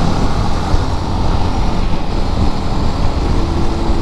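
Motorcycle engine running while riding, mixed with steady wind rush on the microphone; a low, continuous rumble with no clear revs.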